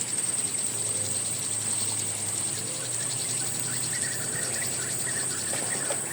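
Insects trilling: a steady high-pitched drone with a fast, even pulsing chirp under it.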